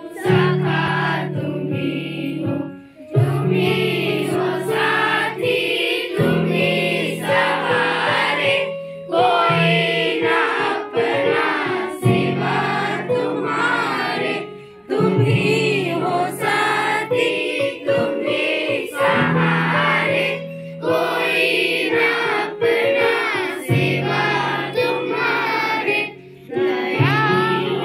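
A group of children singing a song together in chorus over steady held chords that change every few seconds.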